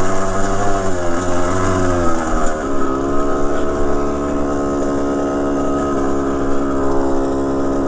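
Kawasaki KX100's 99cc single-cylinder two-stroke engine running as the dirt bike is ridden. It holds a fairly steady pitch, with a shift in engine note about two to three seconds in.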